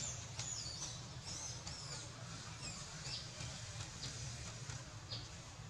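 Faint, short high-pitched squeaks and chirps from animals in the trees, about a dozen scattered through, most sliding quickly downward, over a steady low hum.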